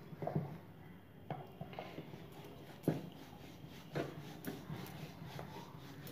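Wooden rolling pin rolling flatbread dough on a wooden board: a low rolling rub broken by irregular soft knocks of the pin against the board, the sharpest about three seconds in.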